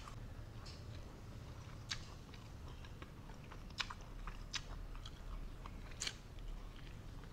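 A person chewing a mouthful of fried fish and rice, faint and close, with about half a dozen short sharp clicks scattered irregularly through it.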